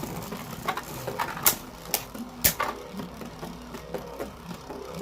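Two Beyblade Burst tops spinning in a stadium, whirring against each other with repeated sharp clashes, the strongest in the first half.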